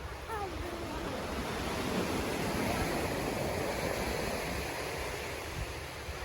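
Waves washing onto a beach, swelling about two seconds in, with wind buffeting the microphone.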